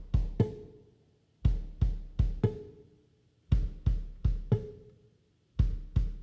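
Background music: a drum beat with deep bass-drum hits, four hits to a group, the group repeating about every two seconds.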